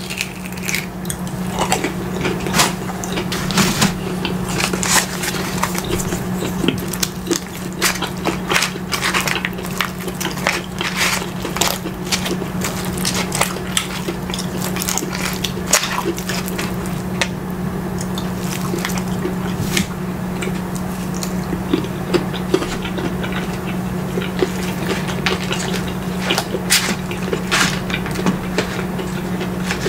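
Close-miked chewing and wet mouth sounds of someone eating a chicken nugget and then cheese fries. Frequent short clicks and crackles come from the mouth and from a plastic fork working in a plastic tray, over a steady low hum.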